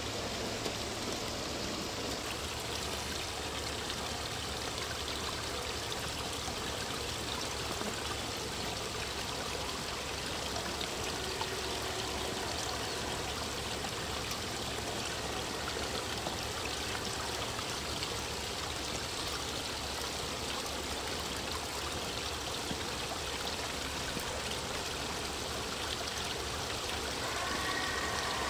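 Steady trickling and splashing of water from a small garden-railway rock waterfall. Near the end a held chord of whistle tones comes in: the 4-8-4 model steam locomotive's sound-decoder whistle.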